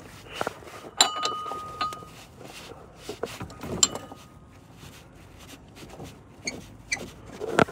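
Metal hand tools clinking on metal in the engine bay as a socket and ratchet unscrew the sheared clutch hub plate from a Denso 7SEU17C A/C compressor shaft. A sharp clink with a short ringing note comes about a second in and again near four seconds, then a quick run of light ticks near the end.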